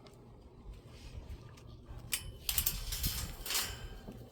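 Metal clinking and rattling: a sharp click about two seconds in, then about a second of rattling, over a low rumble.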